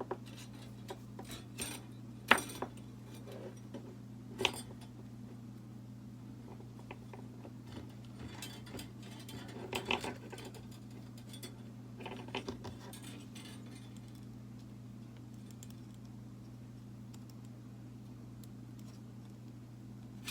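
Scattered light metallic clicks and clinks of wire and hand tools being handled, the sharpest about two seconds in and a busier patch about halfway through, over a steady low hum.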